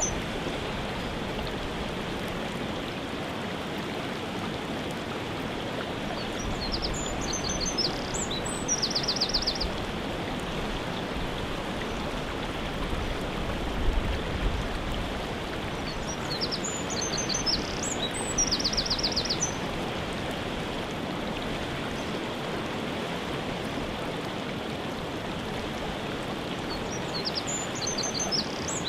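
Steady rush of a waterfall, with a songbird repeating the same short high song about every ten seconds, each phrase ending in a rapid trill. There is one brief low thump about halfway through.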